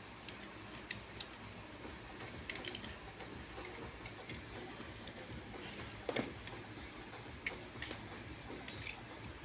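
Faint, irregular light clicks and taps, spaced a second or more apart, the clearest about six seconds in.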